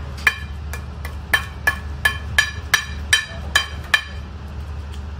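Metal spoon clinking against a ceramic plate as it presses and shapes a mound of mashed food: a run of about ten short ringing clinks, roughly three a second, over a low steady hum.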